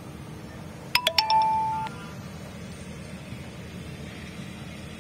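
A short chime about a second in: three quick strikes, then one held tone that cuts off sharply under a second later, over a steady low background rumble.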